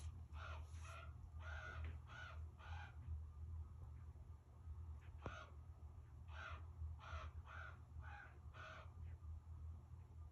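Common raven calling in two runs of five harsh caws, about two a second, with a pause of a few seconds between the runs. A single sharp click falls in the pause.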